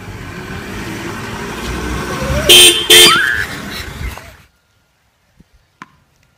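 A car drives close by and sounds its horn in two short toots about two and a half seconds in, over a steady rumble of engine and tyres that builds up and then cuts off suddenly.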